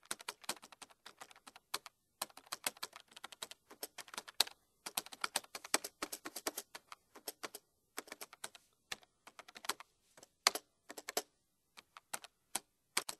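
Rapid typing: quick, irregular runs of key clicks broken by a few short pauses, stopping abruptly at the end.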